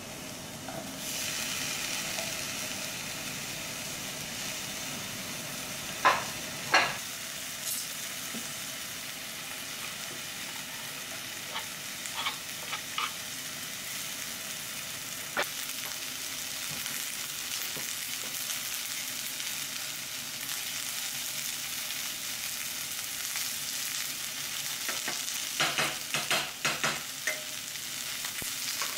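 Onions sizzling in oil in a stainless-steel frying pan on a gas stove, with a steady hiss that picks up about a second in. A wooden spatula stirs and knocks against the pan, with two sharp knocks about six seconds in, a few lighter ones mid-way and a rapid cluster near the end.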